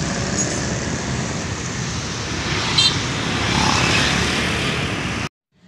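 Street traffic dominated by motor scooters: a steady wash of small engines and tyres passing, with a brief high beep about three seconds in, cut off abruptly near the end.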